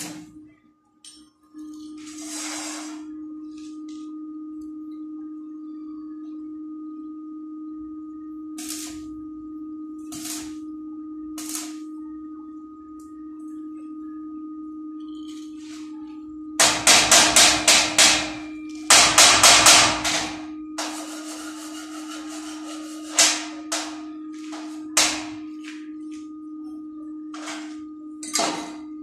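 A steady electrical hum, then two quick runs of hammer blows on steel square tubing about two-thirds of the way in, followed by a few single ringing strikes.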